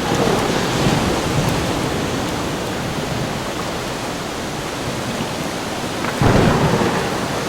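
Thunderstorm sound effect: steady heavy rain with thunder rumbling, and a fresh thunderclap breaking about six seconds in.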